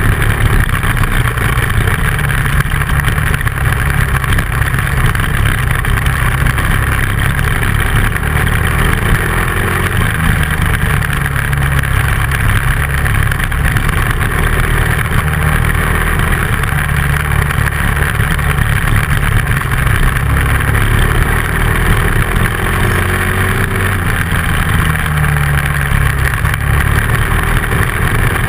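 Dual-sport motorcycle engine running steadily while riding a gravel road, its note drifting up and down a little.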